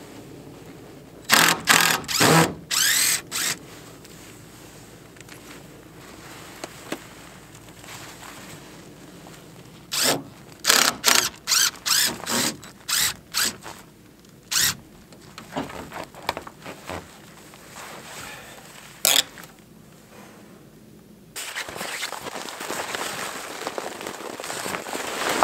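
Cordless drill-driver run in short bursts of a fraction of a second each, several trigger pulls in two quick runs and one more later, working screws in the plywood tent platform. Near the end a steady rushing hiss takes over.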